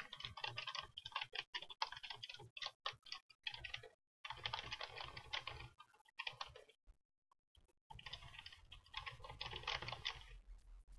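Faint typing on a computer keyboard: quick, uneven key clicks that stop dead twice, for about a second the second time.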